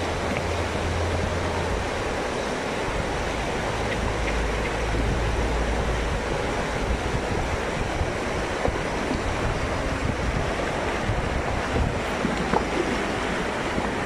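Shallow river rushing over stones, with wind buffeting the microphone at times and a few splashes from horses wading through the water in the second half.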